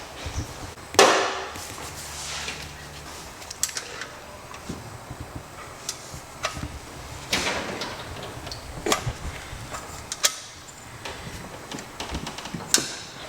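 Hand tools working on a small engine's cylinder head: a series of separate sharp metal clicks and knocks, the loudest about a second in.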